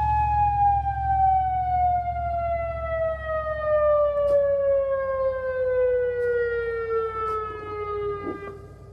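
Tsunami warning siren winding down: its wail slides slowly and steadily lower in pitch and stops shortly before the end. It is sounding a tsunami alert.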